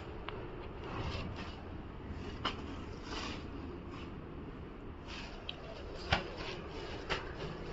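Silk saree fabric rustling and shifting as it is picked up and moved by hand, with a few short light clicks or knocks, the sharpest about six seconds in.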